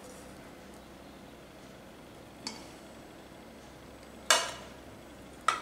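Steel spoon knocking against steel cookware while boiled gram-flour dough logs are lifted out of the pot: a light tap about two and a half seconds in, then two louder clanks with a short ring, about four and five and a half seconds in.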